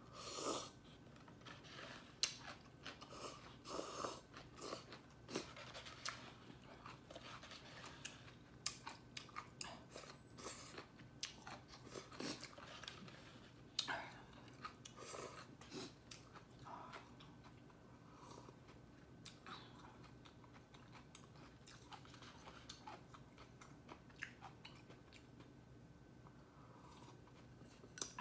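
A person eating close to the microphone: faint, irregular chewing and mouth smacks, busier in the first half.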